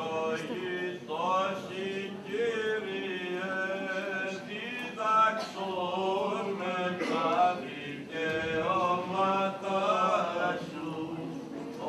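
Male voice chanting a Greek Orthodox Byzantine hymn, a slow melody of long, drawn-out notes that bend from pitch to pitch.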